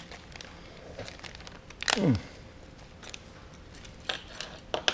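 Packaging of a replacement door-handle kit being opened and handled: scattered small clicks and crinkles, with one loud sweep falling in pitch about two seconds in, and a cluster of clicks near the end.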